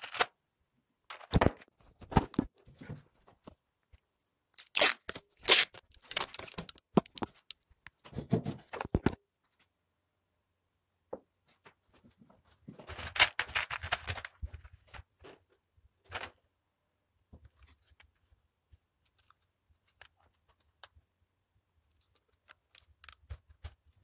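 Loose plastic LEGO Technic parts rattling and clicking as hands rummage through a parts tray and fit pieces together. It comes in irregular bursts, busiest in the first half, with one longer rattling spell about halfway through.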